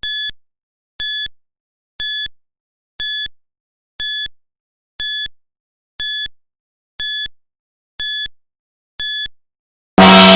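Countdown timer's last-ten-seconds alert: ten short, high electronic beeps, one each second. Near the end a loud gong strikes and rings on, marking time up.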